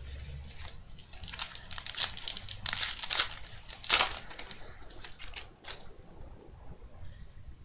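Plastic trading-card pack wrapper crinkling as it is handled, a run of rapid crackles that dies down after about five seconds.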